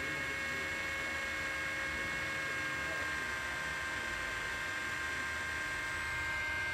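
A steady electrical hum with a few high, steady whining tones over it.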